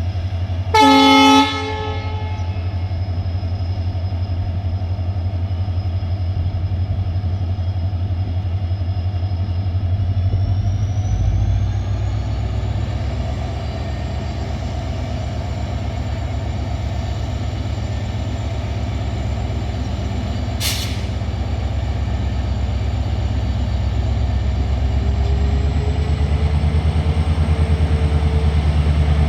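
Indian Railways diesel locomotive sounding one short horn toot, then its engine humming deeply and slowly building as it pulls away. A thin high whine rises in pitch about ten seconds in and again near the end, and there is one sharp click about two-thirds through.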